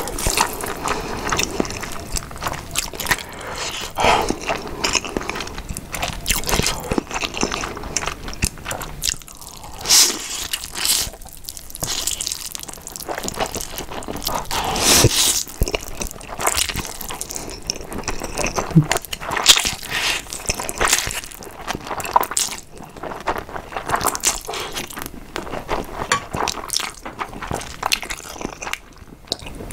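Close-miked slurping and chewing of saucy instant fire noodles, a dense run of wet smacks and sharp little clicks. Near the end come a few quieter moments as she drinks water.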